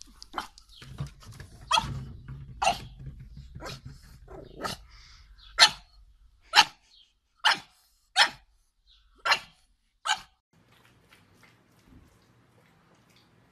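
Pug barking: a run of about ten short, sharp barks roughly a second apart, then stopping.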